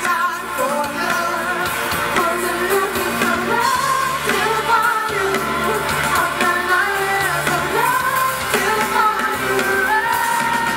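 Live pop band playing a song with lead singing, amplified through a PA system.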